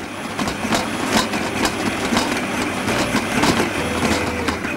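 Electric stand mixer motor running steadily at a lowered speed, its dough hook kneading stiff pasta dough in a steel bowl, with a few light knocks.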